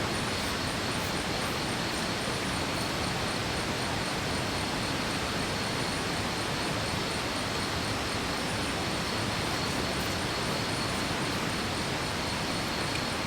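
Steady rushing of a waterfall and stream, with a thin, steady high tone over it.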